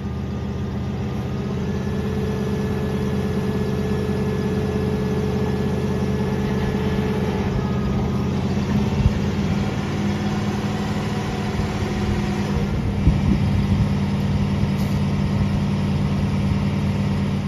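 Rollback wrecker's 454 big-block Chevrolet V8 running at a steady fast idle, the throttle propped up to set the idle high. A faint thin whine sits over it for the first several seconds, and there are two sharp knocks, about nine and thirteen seconds in.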